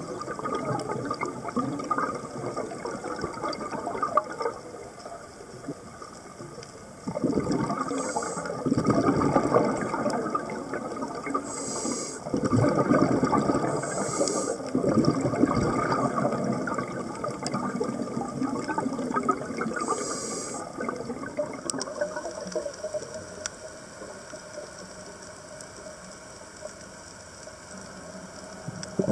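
Scuba diver's exhaled regulator bubbles rushing and gurgling, heard underwater through a camera housing, in louder surges about seven and twelve seconds in, with short high hisses now and then.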